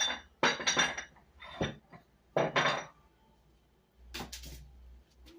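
Hard household objects clinking and knocking together as they are picked up and set down, several sharp clinks with a brief ring in the first three seconds, then a softer knock about four seconds in.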